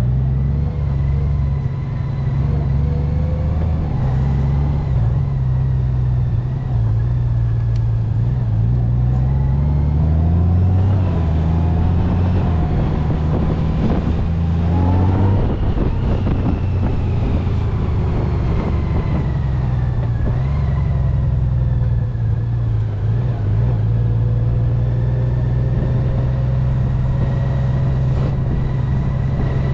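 Honda Gold Wing's flat-six engine running at low road speed, its pitch climbing as it picks up speed from about nine seconds in, dropping back about fifteen seconds in, then holding steady.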